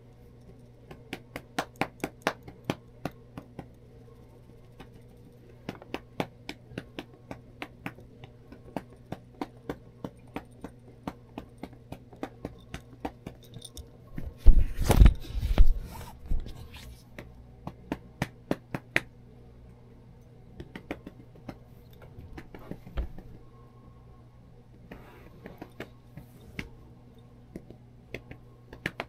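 Light, sharp clicks a couple of times a second, typical of a tabby cat's metal collar tag knocking as the cat is groomed and shifts about. About halfway through comes a loud rustling burst as the cat rubs its fur against the microphone, with a faint steady hum underneath.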